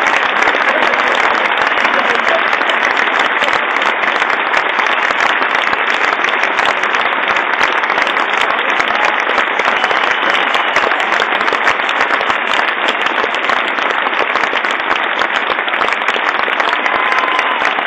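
Large concert audience applauding: dense, steady clapping from many hands with no let-up.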